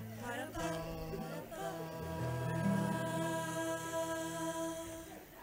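Student tuna ensemble opening a song with slow, sustained chords in voices and instruments, changing chord a couple of times and fading away near the end.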